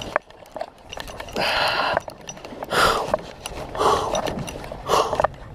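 A man breathing hard in rhythmic rushes about once a second, straining while he fights a big fish on rod and reel, with light clicks in between.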